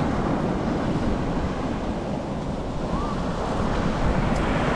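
Ocean surf washing onto the beach, with wind buffeting the microphone. The surf eases a little midway and swells again near the end.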